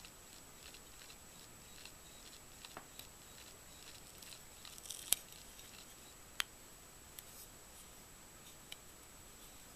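Duct tape being pressed and smoothed by hand onto an AR-15 lower receiver: faint crinkling and light ticks, with a sharper click about five seconds in and another about a second and a half later.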